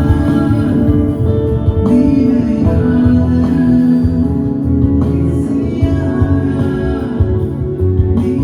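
A live band playing a worship song, with keyboard and guitar over a steady bass and a voice singing.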